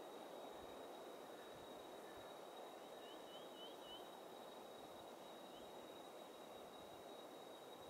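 Faint outdoor ambience: a soft hiss with a steady high thin whine, and a quick run of four small bird chirps about three seconds in, then one more chirp a couple of seconds later.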